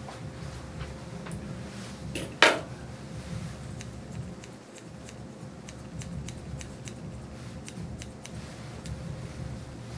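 Grooming shears snipping a dog's hair in a run of short, irregular metallic snips from about three and a half seconds on. A single sharp knock comes about two and a half seconds in.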